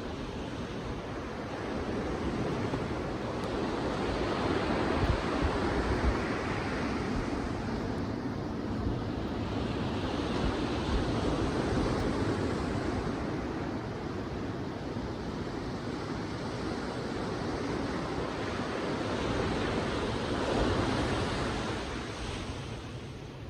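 Ocean waves breaking and washing on a beach, in slow swells that rise and ease every several seconds, with some wind on the microphone.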